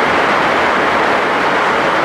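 Heavy rain falling, a loud, steady hiss with no let-up.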